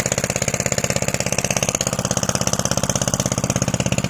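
Small engine running steadily at idle, with a fast, even pulse of firing strokes.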